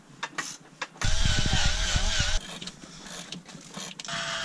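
Handheld power tool running in two bursts as it works the Jeep's front bumper mounting bolts: a few clicks and knocks, then about a second in a run of a little over a second with a wavering whine, and near the end a second, steadier run.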